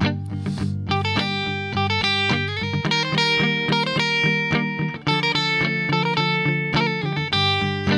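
Electric guitar playing a rhythmic single-note improvised line that mixes chord arpeggios with passing notes. It runs over sustained backing chords that change twice (Gm7, Ebmaj7, Dm7).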